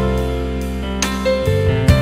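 Instrumental intro music: sustained pitched notes that change about every half second, with a few sharp struck accents.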